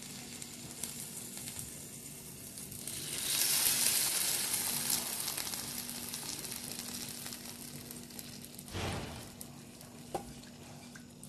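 Garlic sauce sizzling as it is poured onto a hot tray of fried kebabs; the sizzle swells loudest a few seconds in, then slowly dies away, with one short louder burst near the end.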